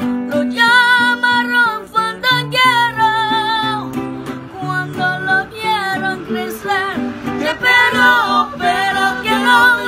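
Acoustic guitar strumming a ranchera-style accompaniment with a walking bass line, while a boy sings long, wavering held notes with no clear words.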